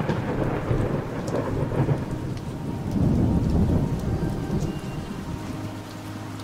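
Steady heavy rain with rolling thunder; the thunder rumble swells loudest about three seconds in.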